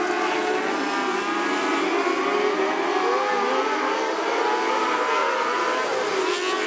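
Several wingless 600 micro sprint cars racing in a pack, their 600cc motorcycle engines running at high revs. Several engine notes waver up and down against each other as the drivers work the throttle through the turn.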